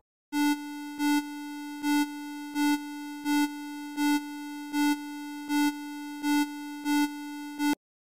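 Emergency alert alarm tone: one steady, low buzzing tone with many overtones that swells louder about every three-quarters of a second, about ten times, then cuts off suddenly.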